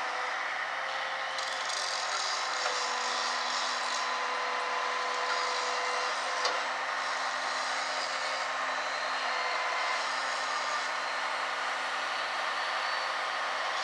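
Kenworth C500 logging truck's diesel engine running steadily, with whining tones that step up and down in pitch now and then, and one sharp knock about six and a half seconds in.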